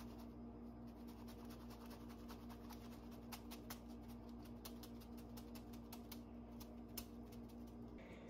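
Quiet room tone: a faint steady electrical hum with scattered soft ticks and clicks.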